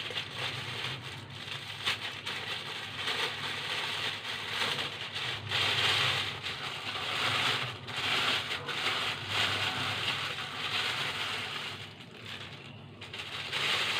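Plastic packaging crinkling and rustling as a microphone tripod stand is unwrapped by hand, with a dip a little before the end.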